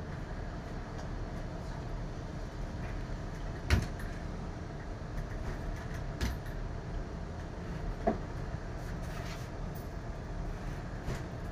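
Steady low background rumble with three short knocks, the loudest about four seconds in.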